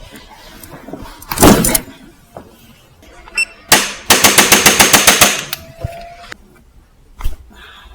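Impacts during a chiropractic adjustment of the pelvis and lower back: one loud thud about a second and a half in, then a fast rattling series of knocks, about ten a second for nearly two seconds.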